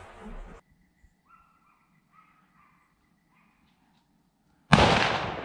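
Gunshot during a wild boar drive hunt: a sudden loud blast near the end that fades out slowly. Before it, faint short calls of distant dogs, and at the very start the tail of an earlier shot fading until it is cut off.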